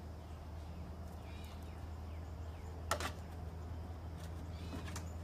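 A steady low hum with a few faint bird chirps, and one sharp knock about three seconds in, followed by a fainter click near the end.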